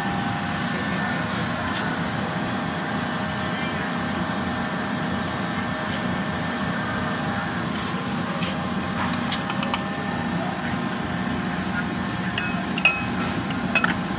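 Steady background hum with a few sharp metal clinks near the end: an aluminium pot lid and a metal spoon knocking against the aluminium cooking pot as the lid goes on.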